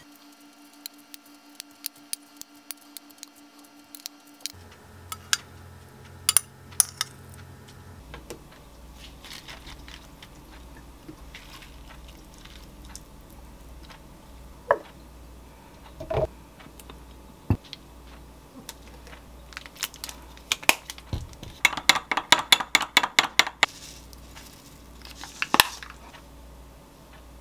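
Light clicks and taps of food and utensils set down on a ceramic plate while a salad is assembled, with a quick rattling run of clicks near the end.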